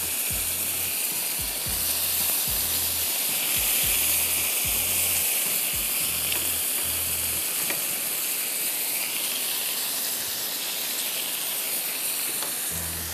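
Chicken breasts sizzling steadily as they cook in a hot pan.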